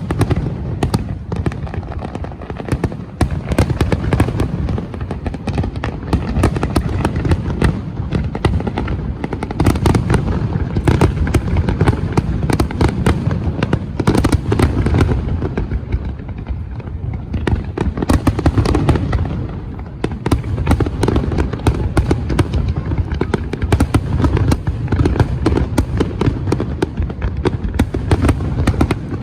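Fireworks display: a dense, unbroken barrage of bangs and crackling over a low rumble.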